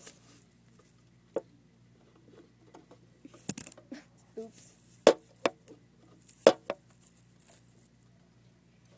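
Handling noise from a phone used as the camera: a handful of sharp knocks and taps as it is moved and set in place, the loudest about halfway through, with soft rustling between.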